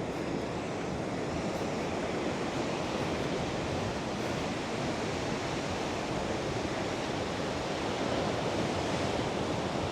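Ocean surf breaking and washing in a steady, continuous noise, a little louder near the end.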